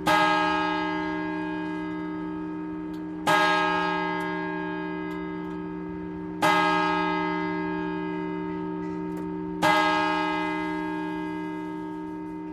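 A clock bell striking the hour, four strokes at the same pitch about three seconds apart, each ringing on and fading slowly into the next.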